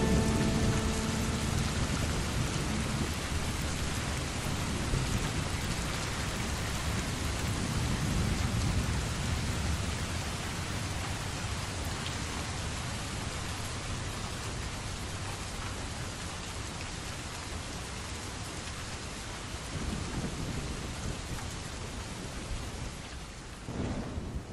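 Heavy, steady rain with low rumbles of thunder, swelling about a third of the way in, again near two-thirds and just before the end, while the whole slowly fades.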